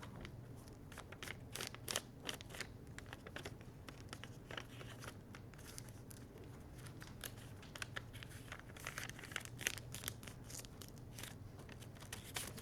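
A sheet of paper being folded and creased by hand into a paper airplane: soft, irregular crinkles and rustles as the folds are pressed flat.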